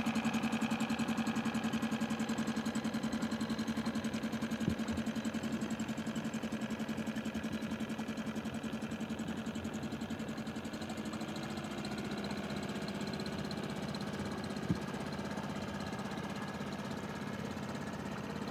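Small Suzuki outboard motor on an inflatable dinghy running steadily as the dinghy pulls away, slowly getting fainter. Two brief knocks sound over it, one about a quarter of the way in and one about three-quarters through.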